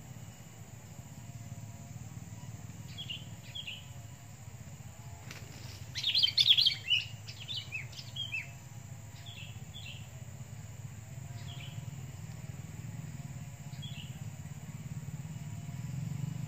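Sooty-headed bulbuls calling: short chirps every second or two, with a loud burst of rapid, overlapping calls about six seconds in.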